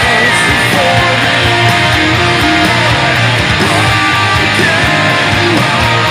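Heavy metal music: a distorted electric guitar, an EVH Wolfgang Standard with a Wolfgang humbucker, playing a riff over a full band mix with drums, loud and steady.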